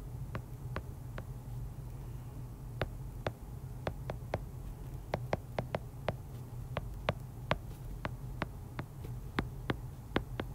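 Stylus tip tapping and clicking on a tablet's glass screen while handwriting: an irregular run of sharp little clicks, about two or three a second, over a steady low hum.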